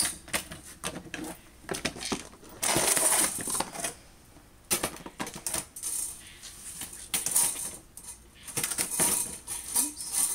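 Metal rattling and clanking of a wire cage trap, a sheet-metal divider and a plastic pet carrier's wire grille door being handled, in a run of sharp clatters with a longer dense rattle about three seconds in and a brief lull just after.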